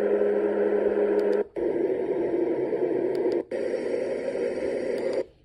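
Dreamegg portable noise machine playing its built-in white-noise sounds as it is cycled through them: three different steady hisses, each cut off by a brief break about a second and a half and three and a half seconds in. The first has a steady low hum under the hiss.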